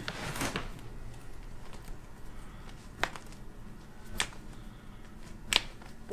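Three sharp single clicks about a second apart, the small joint pops of a chiropractic manipulation, after a brief soft hiss at the start.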